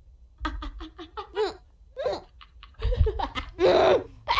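High-pitched laughter in short bursts, loudest near the end.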